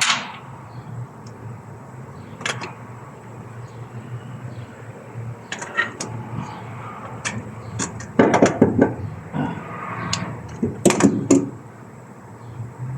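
Irregular knocks and clinks of metal tools and parts being handled during work on the van's starter motor. Two louder rattling bursts come about eight and eleven seconds in.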